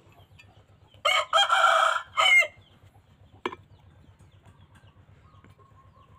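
A rooster crowing once, about a second in, for about a second and a half, its call dropping in pitch at the end. A single sharp knock follows about three and a half seconds in.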